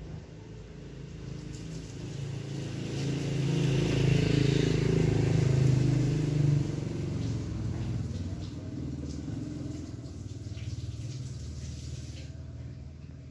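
A motor vehicle passing by: its engine grows louder over the first few seconds, is loudest around the middle, then slowly fades away.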